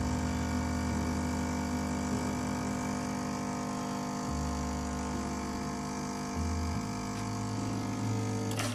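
Pump of a 969 Elba 2 espresso machine humming steadily while an espresso shot is extracted through its E61 brew group.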